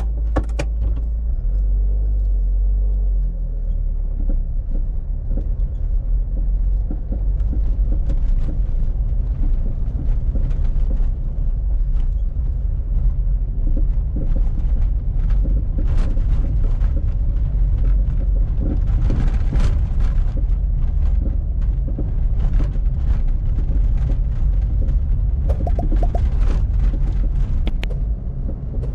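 Citroën Berlingo's 1.9-litre four-cylinder indirect-injection diesel heard from inside the cabin, idling and then moving off: its low drone steps up about three seconds in. It then runs on under light load at low speed, with scattered clicks and rattles.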